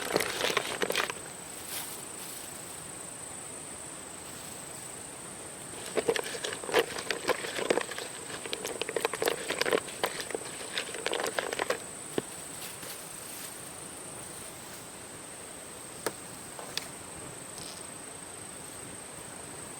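A steady high-pitched insect drone. Over it, a short stretch of rustling and crackling near the start, and a longer one lasting about six seconds in the middle.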